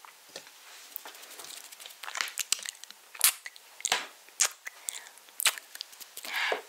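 Close-miked ASMR mouth sounds: irregular wet clicks and smacks right at the microphone, sparse and faint at first and louder and more frequent after about two seconds.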